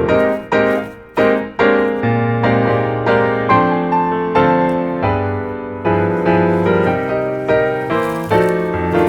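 Background piano music: a run of struck notes and chords, with a brief dip in loudness about a second in.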